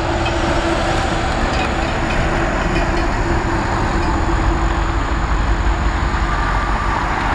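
Diesel locomotives idling in a rail yard: a steady low rumble with a steady hum.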